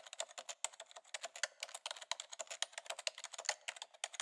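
Computer keyboard being typed on quickly, a fast, steady stream of key clicks.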